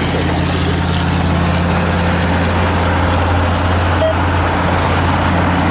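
Steady low engine rumble with a hiss over it, even in level throughout.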